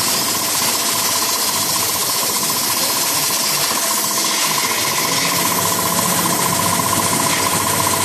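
CNC plasma cutting table at work on galvanized steel sheet: a steady loud hiss from the torch with a high buzz.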